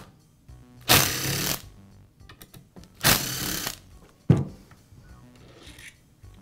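Power screwdriver spinning out the two air filter base screws on a string trimmer's carburetor: two short whirring runs about two seconds apart, followed by one sharp click as the plastic base comes loose.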